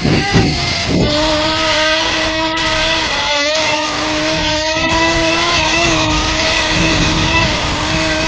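Small nitro glow engine of a radio-controlled tracked snow vehicle running at high revs with a steady high-pitched tone, wavering briefly a few times.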